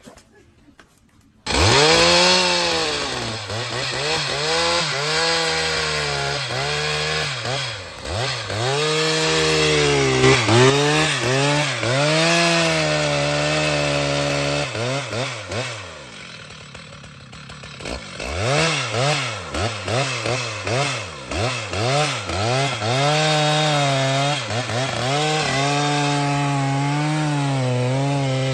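Chainsaw cutting into wood, its engine pitch rising and sagging over and over as the chain bites under load. It starts suddenly about a second and a half in and eases off briefly about two thirds of the way through before cutting on.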